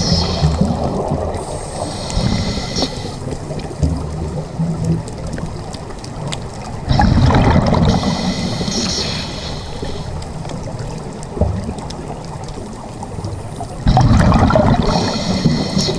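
Scuba diver's breathing heard underwater through the regulator: a loud gush of exhaled bubbles about every seven seconds, three times, with quieter noise between breaths.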